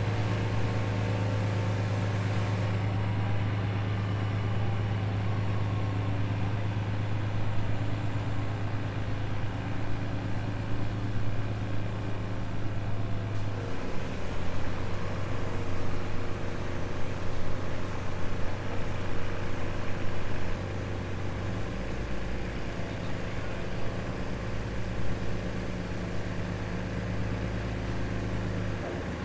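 A fishing boat's inboard engine running steadily at low speed with a deep hum. Its note changes about 14 seconds in and again about 22 seconds in as the boat is manoeuvred alongside the dock.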